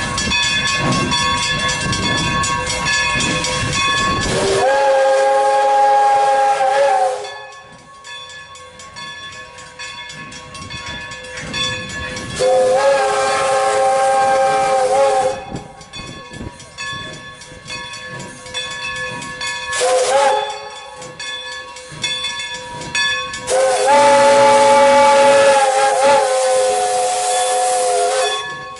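Steam locomotive's chime whistle sounding several notes together. It blows two long blasts, one short and one long, the grade-crossing signal; each blast slides up into pitch as it opens. Before the first blast the engine hisses loudly with steam.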